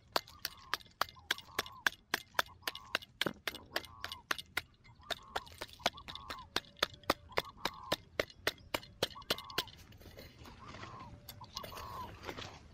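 Small folding shovel chopping into hard, dry soil, about three strikes a second, with short tones recurring between the strikes. The strikes stop about ten seconds in, giving way to looser scraping of loose dirt.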